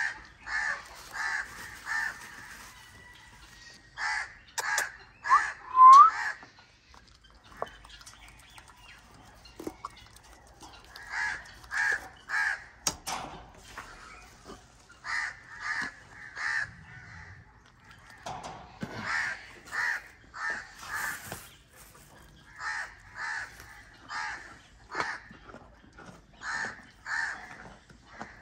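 Crows cawing in runs of three or four calls, repeated every few seconds. About six seconds in, another bird gives a short rising whistle, the loudest sound here.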